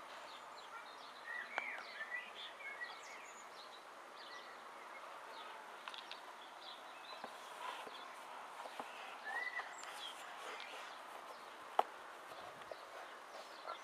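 Steady outdoor background noise with scattered faint bird chirps, and one sharp click about twelve seconds in.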